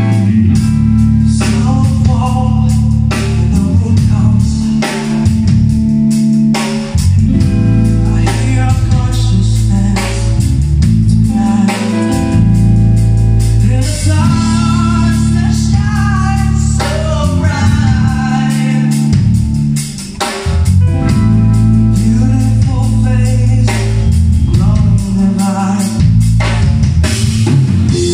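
Alternative rock band playing live: a male singer over two electric guitars, bass guitar and a drum kit.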